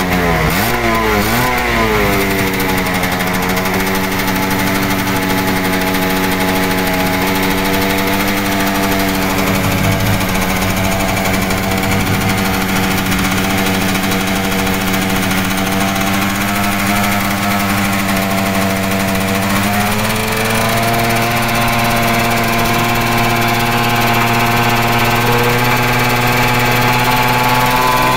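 Yamaha V80 with an F1ZR two-stroke single-cylinder engine running through a debaffled (bedel) exhaust. The throttle is blipped a few times at first, then the engine holds a steady raised speed that steps up slightly about twenty seconds in.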